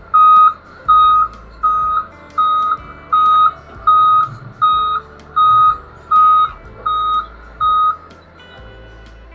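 Concrete mixer truck's backup alarm beeping steadily, about one beep every three-quarters of a second, over the low running of the truck's engine, stopping about eight seconds in: the truck is reversing into place.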